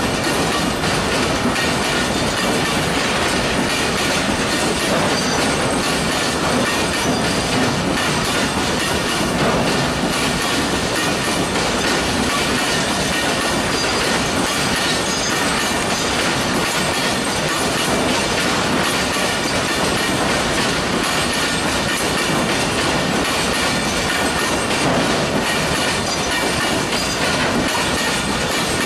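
Long freight train of oil tank wagons rolling past close by: a steady, loud noise of steel wheels running on the rails, with no let-up.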